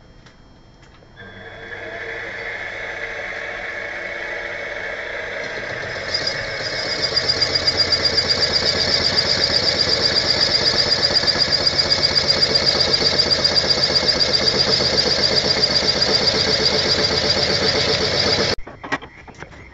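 Motor of a CNC-converted BF20 milling machine running. It starts about a second in, gets louder around six seconds with a fast, even pulsing, and stops abruptly near the end.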